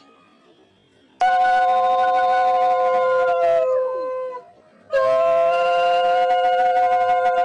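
Conch shell (shankha) blown in two long, steady blasts. The first starts about a second in and sags in pitch as the breath runs out. The second starts about five seconds in and is still sounding at the end. The blowing is the ritual welcome for a clay Lakshmi idol brought into the home.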